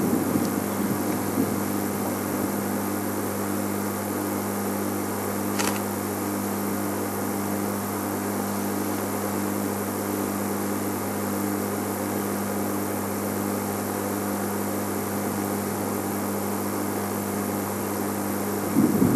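Steady low hum of the idling game-drive vehicle's engine, with one sharp click about six seconds in.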